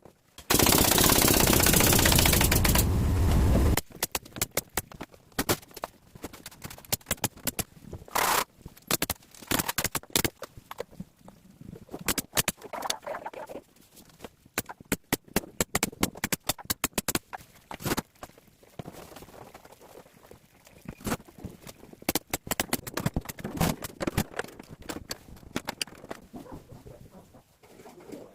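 A power tool runs steadily for about three seconds, then many sharp, irregular clicks and knocks follow, typical of window-frame installation work.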